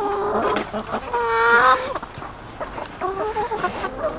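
Backyard hens clucking and calling, with one loud, drawn-out call about a second in and a cluster of shorter calls near the end.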